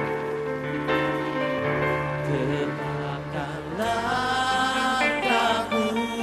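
Slow live worship song: sustained chords, with a man's singing voice coming in about four seconds in.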